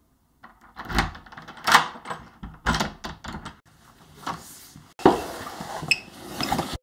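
Door hardware clicking and knocking, with the lock and lever handle worked and the latch released several times over the first few seconds as the door opens, then a few light clicks or steps on a hard floor.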